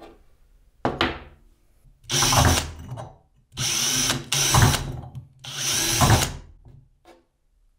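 Cordless drill with a twist bit boring into a rusty steel pipe held in a vise, run in several short bursts of about a second each.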